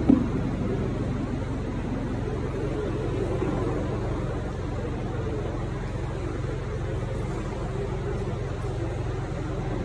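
A steady low hum with a faint, indistinct murmur of voices, and a short bump right at the start.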